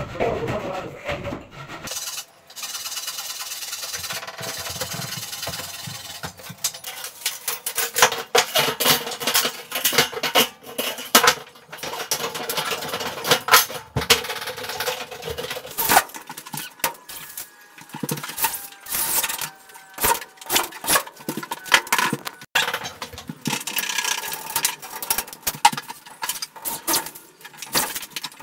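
Sharp metallic clinks and knocks in irregular quick succession from light-gauge steel drywall framing track being handled and fixed in place.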